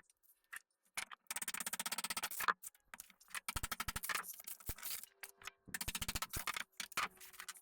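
Rapid, even rattling of a power tool in several short bursts of about a second each, working on rotten plywood, with abrupt silences between the bursts.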